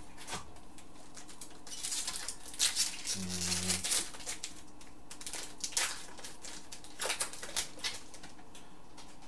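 Hockey card pack wrapper being torn open and crinkled by hand, with the cards inside shuffled, in irregular bursts of crackling and rustling.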